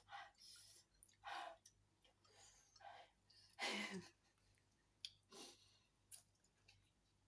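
Close-up eating sounds: chewing and wet mouth noises with breaths, a few separate sounds about a second apart and small clicks between, the loudest about four seconds in.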